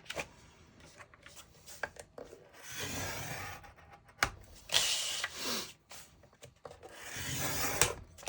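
A scoring tool is drawn along cardstock in the grooves of a scoring board, making three scraping strokes about a second long each. These are score lines for fold lines along three edges of the sheet. Small clicks and taps come between the strokes as the paper is handled.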